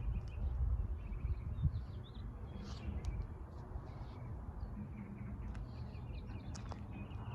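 Small birds chirping now and then over a steady low outdoor rumble.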